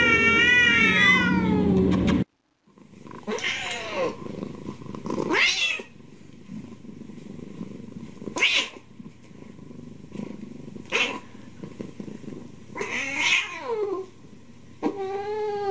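Cats meowing: one long wavering meow, then after a brief gap a string of shorter meows every couple of seconds, the last one falling in pitch.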